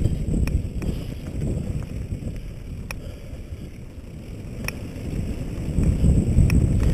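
Wind rushing over a helmet-mounted camera's microphone and low rumble of a mountain bike rolling down a dirt trail, broken by a handful of sharp clicks and rattles from the bike. The rush eases in the middle and builds again near the end as speed picks up.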